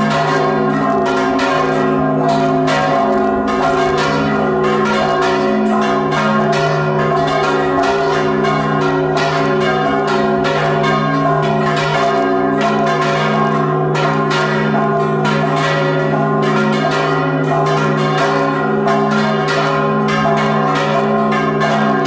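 Repique of church bells rung by hand in the tower, their clappers pulled on ropes: rapid, unbroken strikes of several bells over the steady hum of the largest bell.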